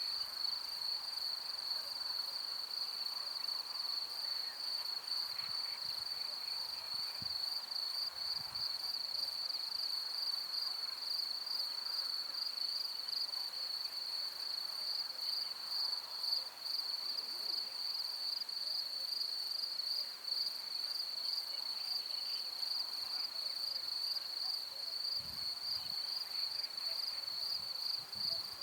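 Field crickets or bush crickets chirring in a continuous high, slightly pulsing trill. A few faint low thuds come in about seven seconds in and again near the end.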